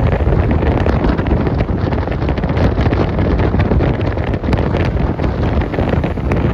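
Wind rushing and buffeting the microphone, with tyre and road noise, as a car drives at speed on a highway. The noise is loud and steady, with a constant low rumble and frequent small crackling gusts.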